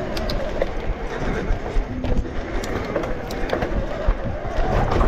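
Specialized Turbo Levo electric mountain bike ridden along a dirt trail: wind rumble on the mounted camera's microphone, tyres on dirt, and frequent sharp rattles and clicks from the bike over rough ground.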